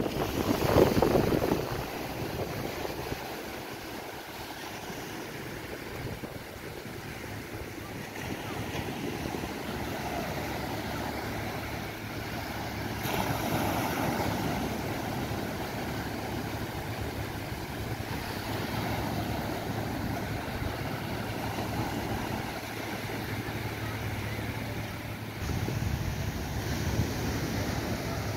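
Small sea waves breaking and washing up a sandy shore, with wind buffeting the microphone, hardest in a gust about a second in. A low steady hum grows louder near the end.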